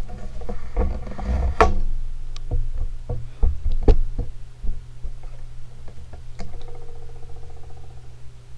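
Mastercraft ceiling fan running with a steady low motor hum, overlaid by a scatter of irregular clicks and knocks, loudest in the first four seconds, and a brief buzzing rattle about seven seconds in.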